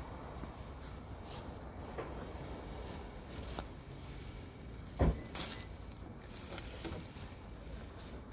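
Steady low outdoor background noise with a few light knocks, and one louder thump about five seconds in.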